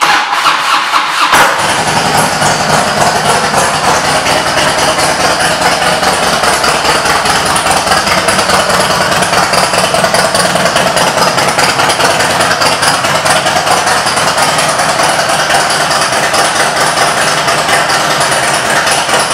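2004 Harley-Davidson Electra Glide Classic's Twin Cam 88 V-twin being started: the starter cranks for about a second and a half, then the engine catches and settles into a steady idle through aftermarket pipes.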